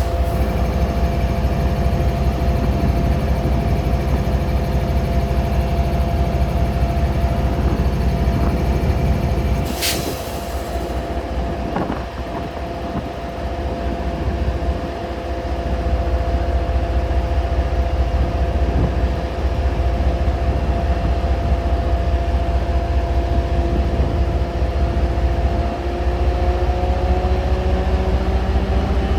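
A stationary train's machinery hums steadily over a low rumble, with a sharp click about a third of the way in. Near the end the hum starts to rise slowly in pitch.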